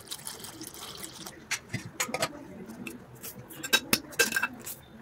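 Milk pouring into a stainless steel bowl, the stream stopping about a second in, followed by drips and a few sharp clicks.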